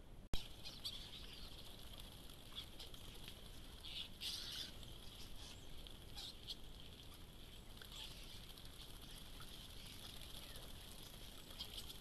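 A flock of common starlings giving short chattering calls amid wing flutters, with a louder flurry about four seconds in. A sharp click comes right at the start as the trail camera begins recording.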